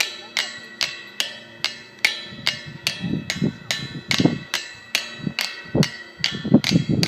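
A fence being banged over and over in a steady rhythm, about two or three sharp knocks a second, each ringing briefly. Heavier, lower thumps join in from a couple of seconds in.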